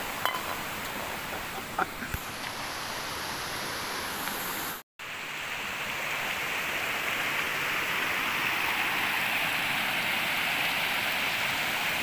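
Steady rush of a small waterfall and stream running over rocks. A few light knocks in the first couple of seconds, and the sound cuts out briefly about five seconds in, after which the water is a little louder.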